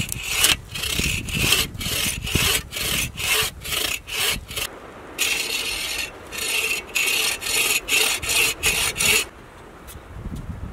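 Folding bow saw cutting through green wood in quick back-and-forth strokes, about two a second. There is a short break about halfway through, and the sawing stops near the end.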